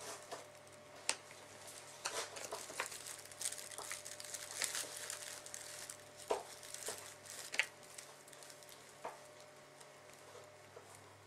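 A cat rummaging head-first through a plastic basket of toys: irregular rustling and crinkling, with scattered small clicks and knocks as the toys are pushed about.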